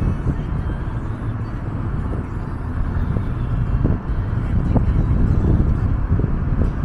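Outdoor street recording: a steady low rumble of road traffic.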